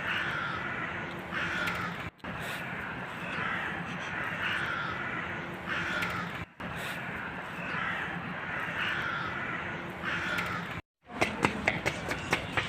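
Crows cawing over and over in harsh calls, with the sound cutting out briefly three times. Near the end, a quick run of sharp clicks or knocks.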